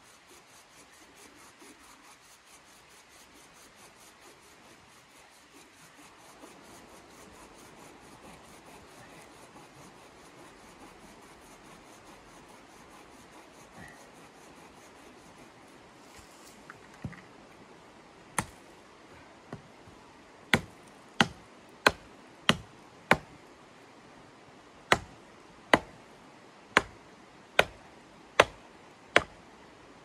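Wood being chopped: faint rubbing and scraping, then from about halfway through a run of sharp wooden knocks a little over half a second apart, five strikes, a short pause, then six more.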